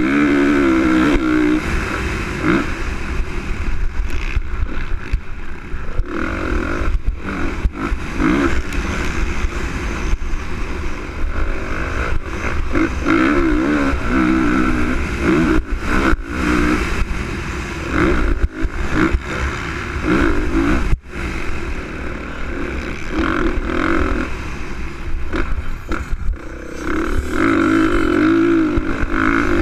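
2013 Honda CRF450R's single-cylinder four-stroke engine at racing speed, revving up and backing off over and over as the throttle opens and closes, heard from the bike's onboard camera with wind rush.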